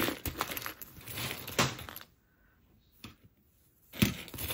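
Costume jewelry clinking and rattling as pieces are handled and sorted. There is a spell of clatter, a pause of about two seconds, then another short clatter near the end.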